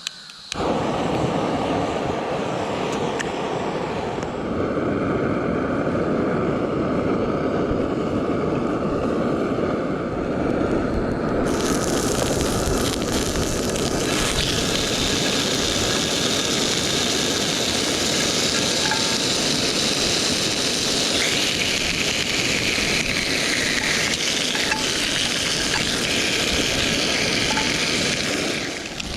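Portable gas stove burner running with a steady rushing flame noise that starts suddenly. A brighter hiss joins about twelve seconds in.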